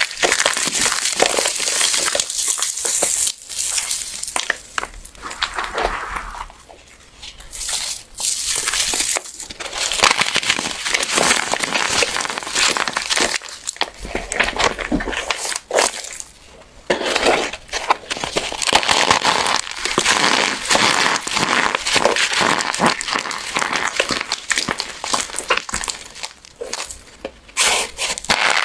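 Dried, crunchy soap pieces crushed by hand: a dense run of crunching and crackling, easing off briefly about a quarter of the way in and again a little past halfway.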